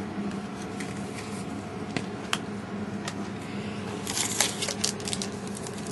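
Trading cards from a 2007 Playoff Prestige football pack being handled and flicked through, a few light ticks at first, then dense crinkling and rustling of cards and foil wrapper from about four seconds in, over a steady low hum.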